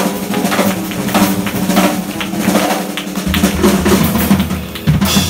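Live blues trio playing an instrumental passage on acoustic guitar, upright double bass and drum kit, the drums hitting steadily, with a deep bass note coming in about three seconds in.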